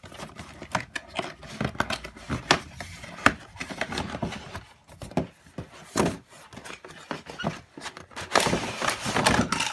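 Scissors snipping sellotape and the cardboard-and-plastic doll packaging being handled, with scattered clicks and scrapes. Near the end comes denser rustling as the inner tray slides out of the box.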